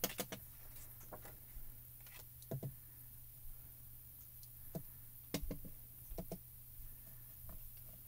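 Soft, irregular taps of an ink blending brush dabbing on an ink pad and on paper through a plastic stencil, about a dozen small taps spread unevenly.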